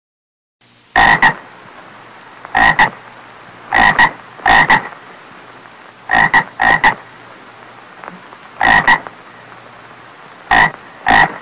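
Toad croaking in a pond: short, loud croaks about once a second, several of them coming as quick doubles, over a faint steady hiss.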